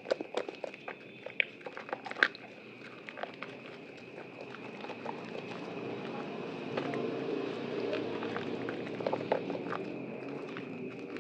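Soaked bar of Prima Protect white soap being squished and lathered by hand: wet crackling clicks at first, turning into a denser, steadier squelching from about six seconds in.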